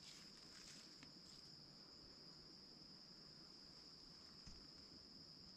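Faint, steady high-pitched drone of insects chirring, holding one unbroken pitch throughout.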